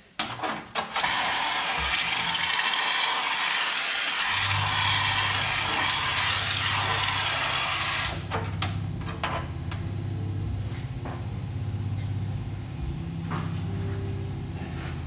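Air-powered rust-treater spray gun hissing for about seven seconds as the fluid is blown through a hose wand into the body cavities, then cutting off. A steady low hum starts about four seconds in and carries on, with a few light clicks after the spraying stops.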